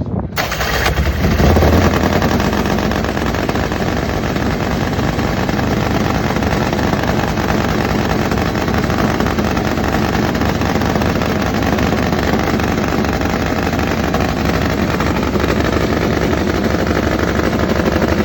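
Top Fuel Harley drag bike's nitro-burning V-twin running hard with a rapid, crackling exhaust. It comes in suddenly, builds over the first couple of seconds, then holds steady and loud.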